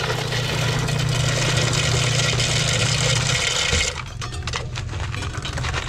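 Soda fountain's ice dispenser running: its motor hums as ice cubes rattle down into a foam cup. It stops about four seconds in, followed by a few light clicks of ice.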